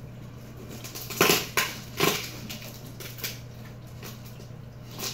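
Cardboard shipping box being pulled open by hand, its packing tape and flaps tearing and crinkling in a few short bursts, the loudest just over a second in.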